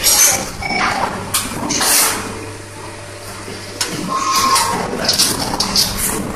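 USB data cable manufacturing press running with a steady low hum, while cables are handled on its steel die plate, giving short bursts of rattle and hiss, with a quieter stretch near the middle.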